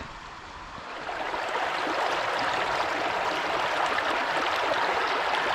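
Creek water running steadily, growing louder about a second in and then holding even.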